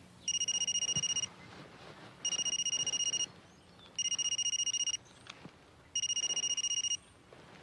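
Telephone ringing: four electronic rings of about a second each, a high warbling tone, with short pauses between them.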